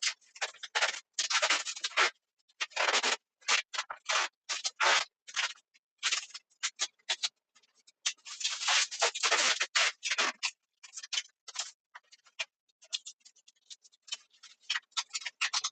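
Sped-up work noise from a refrigerator being swapped out: a fast, irregular run of scrapes, clicks and knocks, with longer scraping stretches near the start and about halfway through.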